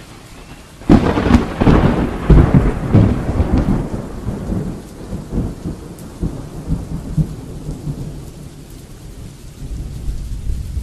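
Thunderstorm sound effect: a sudden loud thunderclap about a second in, then a rumble that dies down over the next few seconds, over a steady hiss of rain. The rumble swells again near the end.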